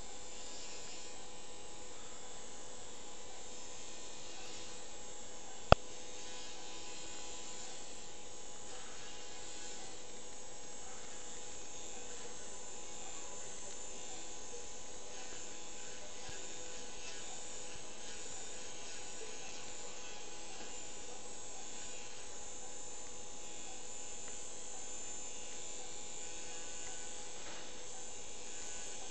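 Motorized arthroscopic burr running with a steady buzz as it grinds down bone at the femoral head-neck junction during an osteochondroplasty. A single sharp click comes about six seconds in.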